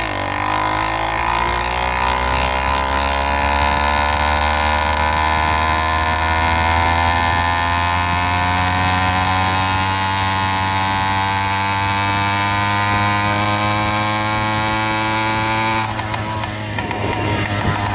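Small engine of a motorized bike running under way, its pitch climbing slowly and steadily as it gains speed. Near the end the note briefly drops and goes rough, then settles again.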